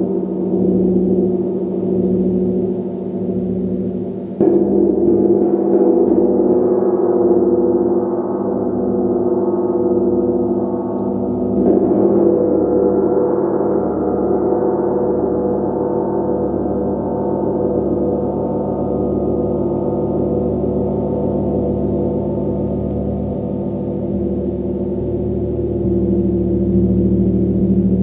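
A large gong played with a mallet, its dense wash of overtones ringing continuously. It is struck again about four seconds in and about twelve seconds in, and swells again with a deeper tone near the end.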